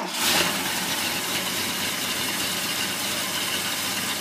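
Truck engine just started, surging briefly in the first half second and then settling into a steady idle. The alternator is charging the battery at about 14.4 volts.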